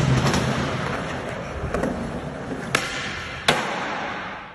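Skateboard wheels rolling on a smooth concrete floor, with sharp clacks of the board. The loudest clacks come at the very start and about three and a half seconds in, with another just before that. The sound cuts off abruptly at the end.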